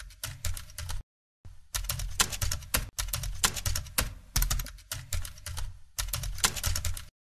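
Mechanical typewriter keys striking in rapid, irregular runs, with a short pause about a second in and an abrupt stop near the end.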